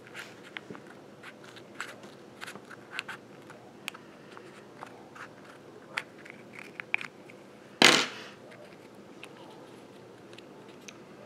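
Small curved scissors snipping through the leathery shell of a ball python egg: a string of short, crisp snips and crackles. About eight seconds in there is one louder, brief rush of noise.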